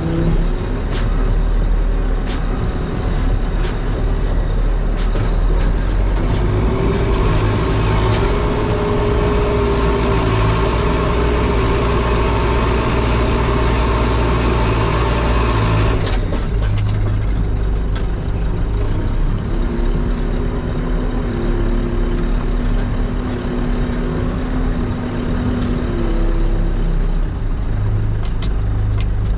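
Heavy diesel earthmoving machine running steadily, its engine note shifting up and down as it works. There are regular faint ticks through the first half.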